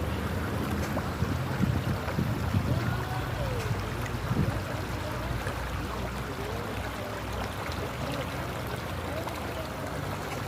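River water running over rocks: a steady rushing noise, slightly louder and more uneven in the first few seconds, then even.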